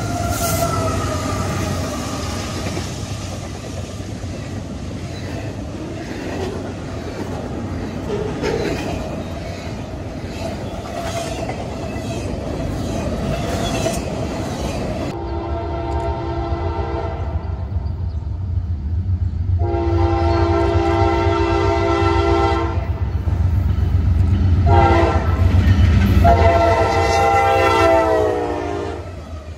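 A double-stack intermodal freight train passes close by, its cars and wheels rumbling and clicking over the rails. About halfway through, a locomotive horn blows the grade-crossing pattern: two long blasts, a short one, then a long one that drops in pitch at the end.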